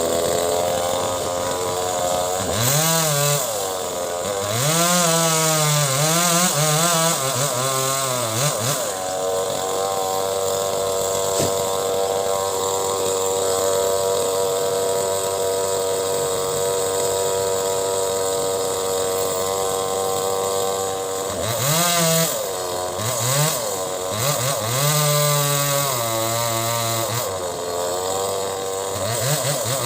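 Chainsaw running at high revs while cutting mango wood, its pitch dipping and rising again and again as it is throttled and loaded in the cut, with a long steady stretch at full throttle in the middle.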